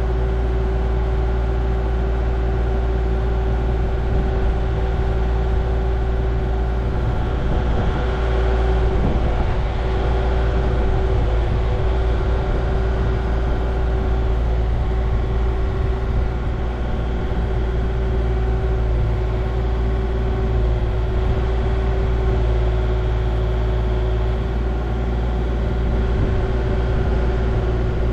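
A motor vehicle driving at a steady speed: a steady low road rumble with an even engine drone.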